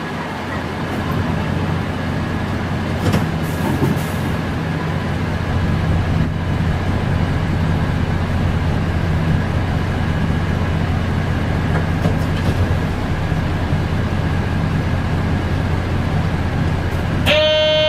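A stationary city bus's diesel engine idling steadily. Near the end a steady electronic buzzer-like tone starts.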